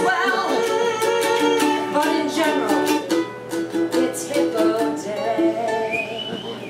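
Ukulele strummed in a song, with singing over it for the first few seconds; after that the ukulele carries on alone with a repeated rhythmic figure.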